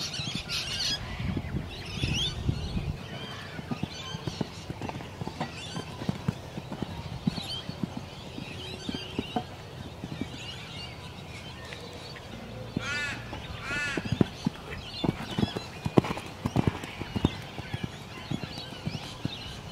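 A horse's hooves thudding in a canter rhythm on a sand arena, with birds calling in the background.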